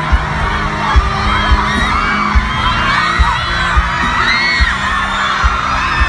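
A crowd of fans screaming and cheering over music, with regular low thumps a little under a second apart.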